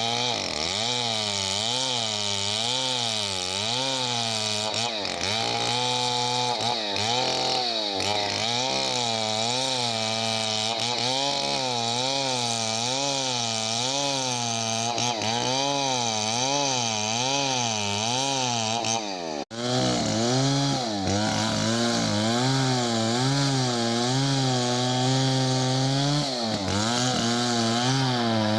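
STIHL 070 two-stroke chainsaw running hard through wood, its engine pitch rising and falling about once a second as it works the cut. The sound drops out for a moment about two-thirds of the way through, then carries on.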